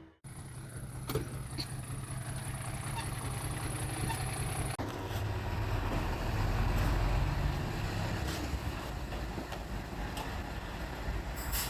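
Heavy diesel earthmoving machinery running steadily, a bulldozer and dump trucks at work, with a low engine drone and scattered clanks. There is an abrupt cut about five seconds in.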